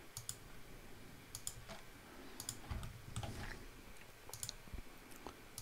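Faint, scattered clicks of a computer mouse and keyboard, several coming in quick pairs, as vertices are placed and edges extruded in a 3D modelling program.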